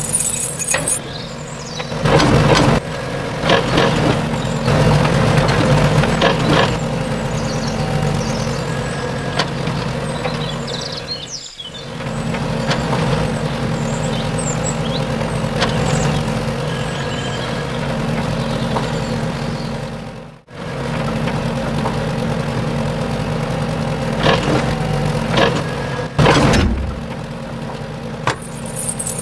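A steady engine drone with clanks and hisses over it, broken off abruptly twice.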